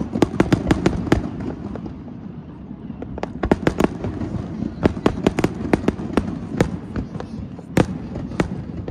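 Aerial firework shells bursting: rapid runs of sharp cracks and pops over a low rumble, with one loud crack near the end.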